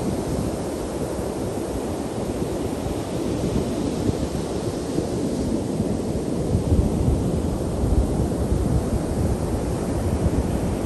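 Ocean surf breaking offshore and washing up a sandy beach in a steady rush, with wind buffeting the microphone in a low rumble that grows a little louder about two-thirds of the way through.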